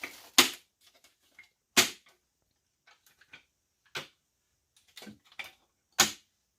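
Sharp clicks and knocks of hard plastic sewing-machine parts being handled and fitted together, likely the extension table being set against the machine. Three loud clicks, just after the start, near two seconds in and near the end, with fainter taps between.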